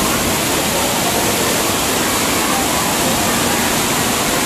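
Water rushing steadily down a water slide's flume into its run-out channel, a constant loud splashing wash of noise.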